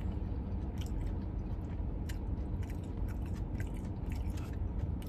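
A person chewing a mouthful of a rice and chicken bowl close to the microphone: soft wet chews and small mouth clicks. A steady low hum runs underneath.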